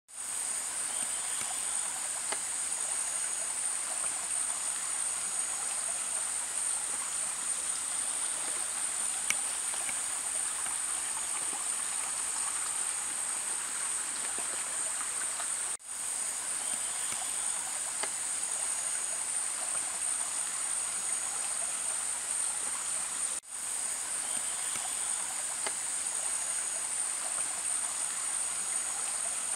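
A shallow stream babbling over stones under a steady, high-pitched insect chorus. The sound cuts out for an instant twice.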